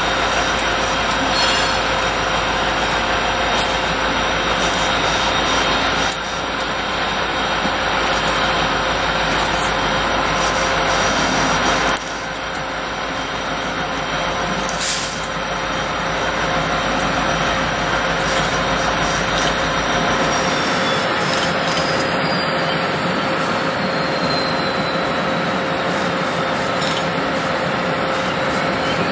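A string of EMD SD70ACe diesel-electric locomotives passing close by: engines running with a steady hum over wheel and rail noise, and a thin squeal that slides downward in pitch from about two-thirds of the way through.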